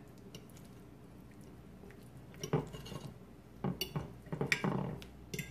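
Two metal forks clinking and scraping against a dinner plate while digging into a casserole, with a few sharp clinks from about halfway in.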